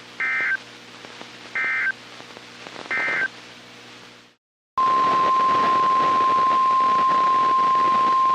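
NOAA Weather Radio SAME data tones: three short warbling bursts about a second and a half apart, the end-of-message code closing a tornado warning, over radio hiss. After a brief dropout, the steady 1050 Hz weather radio warning alarm tone starts about five seconds in and holds.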